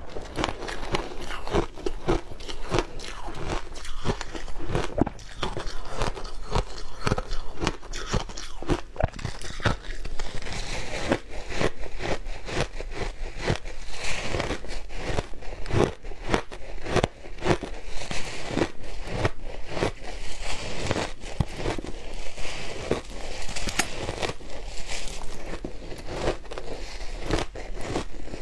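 Shaved ice being chewed close to the microphone: a steady run of crisp crunches and crackles, several a second.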